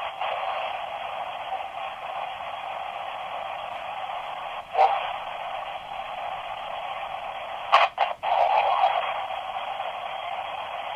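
Spirit box radio static: a steady, thin hiss, broken by a short burst about five seconds in and two sharper, louder bursts near eight seconds.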